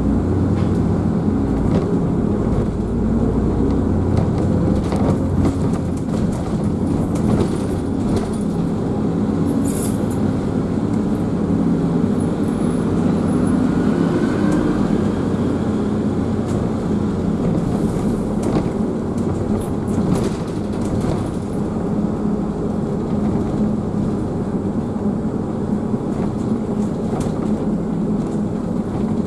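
Steady engine and road rumble heard inside a moving double-decker bus, with a few short clicks and rattles and a faint rising whine about halfway through.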